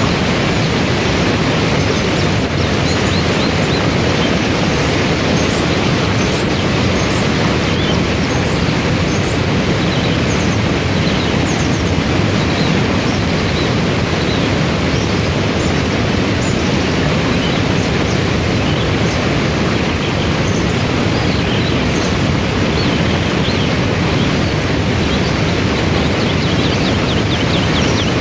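Waterfall and river rapids rushing: a loud, steady wash of falling and tumbling water.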